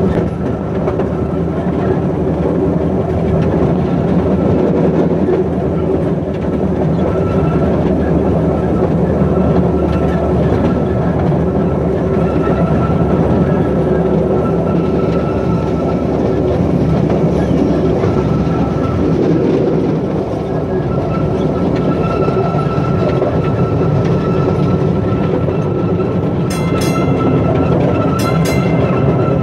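Small park train's open passenger car running along the track: a steady, loud rumble and rattle of the wheels and car, with a few short high squeaks near the end.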